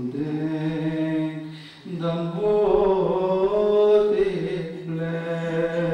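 A solo male voice chanting a naat in Dutch, unaccompanied, in long held melodic notes. A short breath break comes a little before two seconds in, then a louder sustained phrase.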